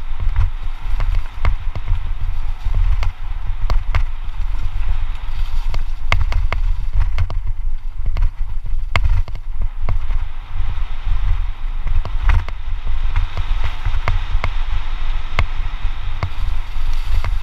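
Mountain bike riding fast downhill over a dirt trail, with a deep wind rumble on the helmet camera's microphone. Many sharp clicks and knocks throughout as the bike rattles over roots and bumps, over a steady hiss of tyres on dirt.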